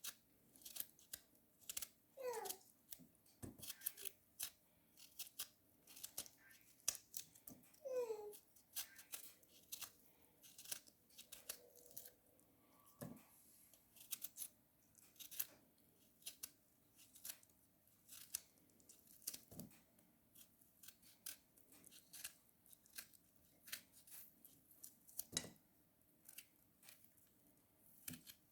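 Faint, crisp cutting clicks and snips, a few a second at irregular intervals, as ingredients are cut up by hand. Two short falling squeaks come about two and eight seconds in.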